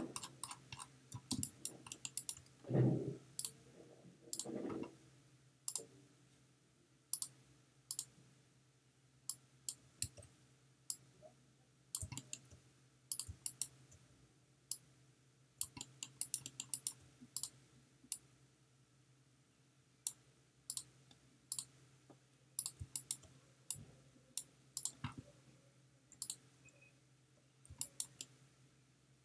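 Scattered computer mouse clicks and keyboard key presses, coming singly or in quick little clusters with gaps between, over a faint steady hum. Two short, duller sounds come about three and five seconds in.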